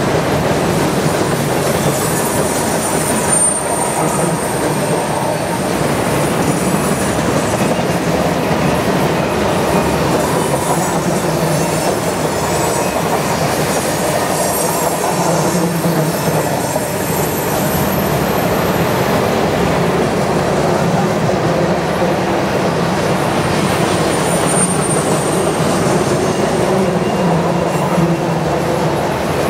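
Covered grain hopper cars of a freight train rolling past: a steady rumble and rattle of steel wheels on the rails, with a faint high-pitched wheel squeal coming and going a few times.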